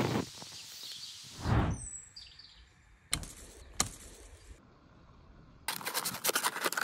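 Pine-needle tinder fire crackling and hissing, cut off at the very start, then a dull thump and two sharp snaps as a knife cuts cattail stalks. Near the end, a knife sawing into a ridged plastic bottle makes a fast run of crackling, scraping clicks.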